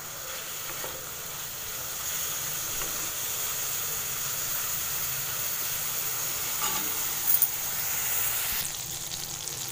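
Paneer cubes shallow-frying in a little oil in a kadai, giving a steady sizzle while a wooden spatula turns them. One brief knock about two-thirds of the way through.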